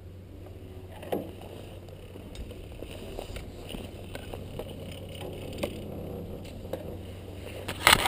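Ride on a chairlift chair: a steady low hum with scattered light clicks and knocks, and a short cluster of louder knocks near the end.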